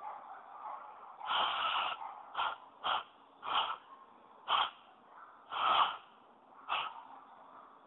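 Breath blown through cupped hands in attempts at a cupped-hand whistle call: seven short, airy puffs, the first and one a little past halfway longer than the rest.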